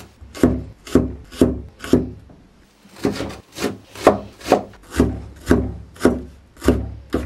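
Kitchen knife finely chopping bell peppers on a cutting board: steady strokes about two a second, with a short pause about two seconds in.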